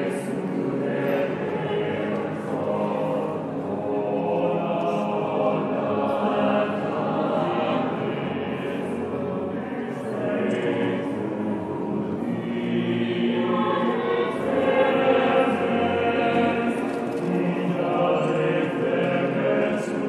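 A choir singing a cappella, many voices holding long sustained chords. The chords swell a little louder about two-thirds of the way through.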